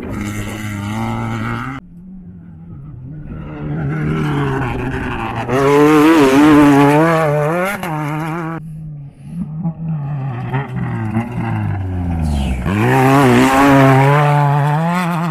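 Off-road race vehicles' engines revving hard as they come through a turn, the pitch wobbling up and down with the throttle. The sound breaks off suddenly twice, and it is loudest around the middle and again near the end.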